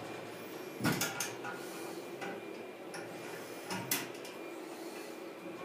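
Wire mesh of an enclosure rattling and knocking as a young vervet monkey climbs and hangs on it. There are sharp knocks about a second in and again near four seconds.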